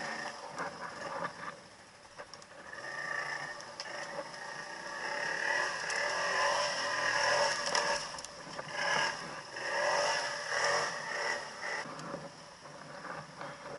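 ATV engine revving in repeated surges as the quad churns through mud and brush, with scraping and clattering of branches against the machine.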